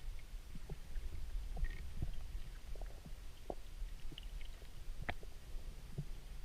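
Underwater ambience: a steady low rumble of water with scattered faint clicks and ticks, one sharper click about five seconds in.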